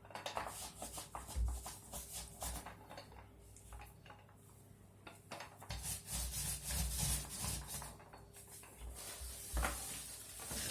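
Irregular rubbing and scraping strokes of a paintbrush spreading paint over a wall, with a quieter stretch in the middle.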